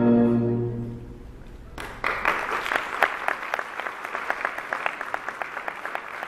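A youth orchestra's last sustained chord fading out, then after a short hush the audience breaks into applause about two seconds in, many hands clapping.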